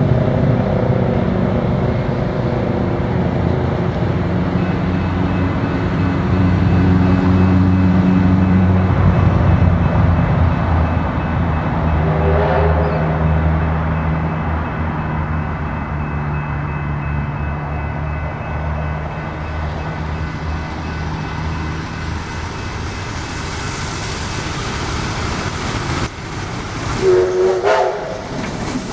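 Victorian Railways K-class steam locomotive K190 approaching, sounding its whistle twice: a short blast about twelve seconds in and a louder one near the end as it draws close, over a steady low rumble.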